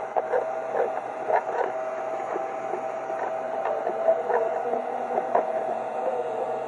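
Small 12-volt DC motor of a homemade plastic-bottle vacuum cleaner running with a steady hum, with irregular clicks and knocks over it.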